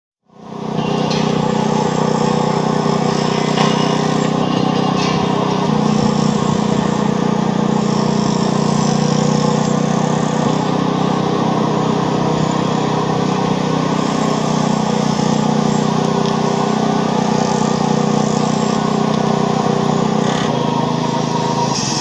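A steady, loud din of mixed noise with a constant low machine-like hum running through it, fading in at the start. It is a racket sound effect.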